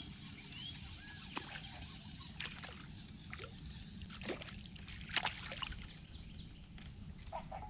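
A hooked crappie splashing and sloshing at the water's surface as it is reeled toward the boat, in a string of short, sharp splashes, the loudest about five seconds in. A few faint bird chirps near the start.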